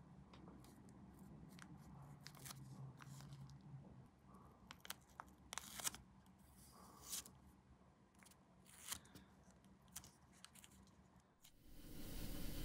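Faint, scattered clicks and short snips of hand work on small plastic scale-model parts. A steady hiss with a low hum comes in near the end.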